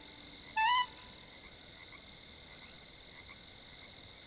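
A single short frog croak with a rising, wavering pitch, about half a second in, for the frog puppet; the rest is faint hiss.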